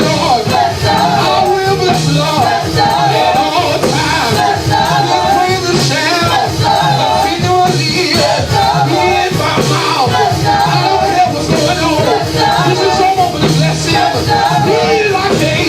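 Live gospel praise music: a band playing a steady beat while voices sing.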